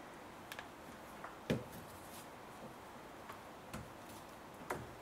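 Scattered light clicks and knocks of hand tools and plastic engine-bay parts being handled, about eight in all, the loudest about a second and a half in and another near the end.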